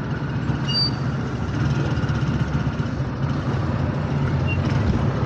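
Jeepney engine running steadily with a low rumble and road noise, heard from inside the passenger compartment.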